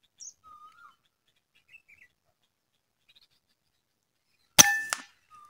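A PCP air rifle fires a single shot about four and a half seconds in: a sharp, loud crack with a short ringing tail. Faint bird chirps come before it.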